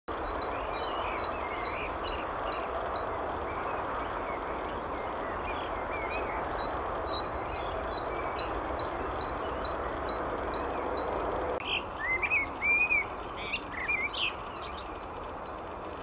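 Great tit singing its repeated two-note song, about four phrases a second, in two bouts. About twelve seconds in, after a change of scene, a Eurasian blackbird sings a few lower, fluty warbled phrases.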